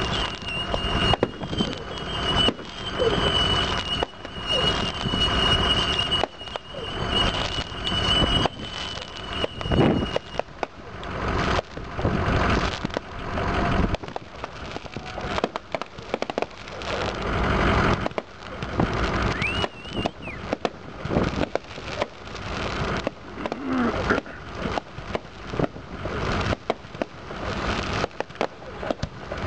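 Fireworks going off in quick succession: many sharp bangs and crackles of bursting shells and fountains, with a steady high whistle for about the first ten seconds.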